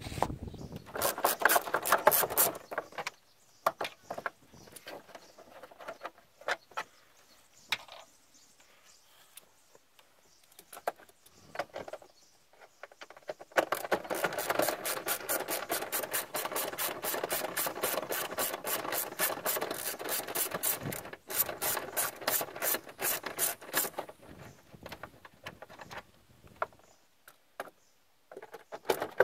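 Hand ratchet wrench clicking in fast runs as the fan shroud bolts are turned out: a short burst about a second in, scattered clicks, then a long stretch of rapid, even ratcheting in the second half.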